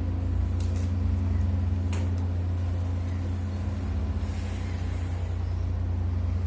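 Low, steady rumble of a running engine, with a short hiss of air about four seconds in, over the faint, fading hum of church bells.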